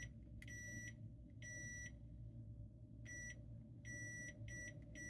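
Multimeter's continuity beeper giving a high tone that breaks up into irregular, stuttering beeps of uneven length, then holds steady near the end. The stutter is put down to what is probably some sort of diode in the switch's circuit.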